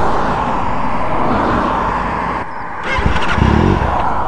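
A car passing close by on the road, a steady rush of tyre and engine noise. It cuts off abruptly about two and a half seconds in, followed by a few light knocks and a brief low hum near the end.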